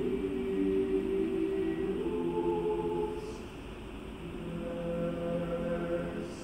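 Choir singing long held chords, softening a little past the middle and then swelling again.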